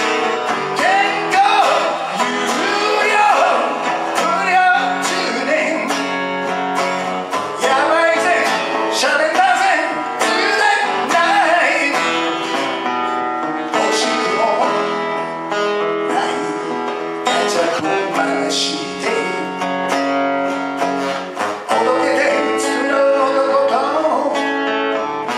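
A man singing a ballad while strumming an acoustic guitar, the voice coming in and out between phrases over the steady strumming.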